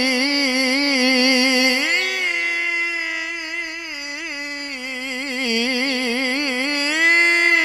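Male Qur'an reciter (qari) singing one long, unbroken melismatic tilawah phrase, the held vowel wavering in quick ornaments. The pitch steps up about two seconds in, sinks lower in the middle and climbs again near the end.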